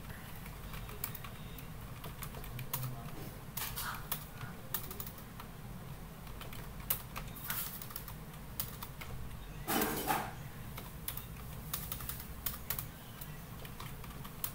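Computer keyboard typing: irregular key clicks as short commands are typed, with one louder clatter about ten seconds in, over a low steady hum.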